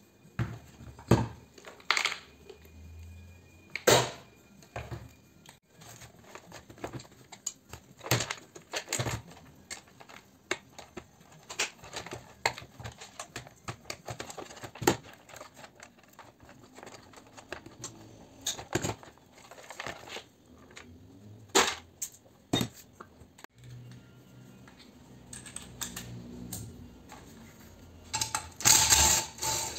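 Scattered clicks, clinks and knocks of small metal and plastic parts as an ironing device is pried apart with pliers and hand tools. Near the end a cordless drill runs briefly, loudly, driving out a screw in the appliance's metal body.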